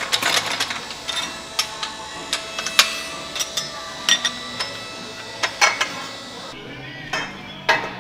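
Metal clinks and knocks from a manual tube bender being set up and worked: steel dies, pins and the metal tube striking one another in irregular sharp clicks, a few a second, each with a short ring.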